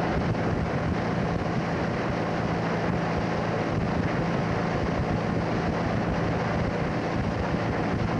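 Boat motor running steadily under way, with wind rushing on the microphone.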